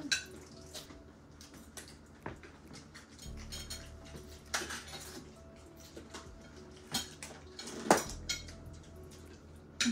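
Scattered clinks and knocks of cutlery and dishes on a dinner table during a meal, the loudest knock about eight seconds in.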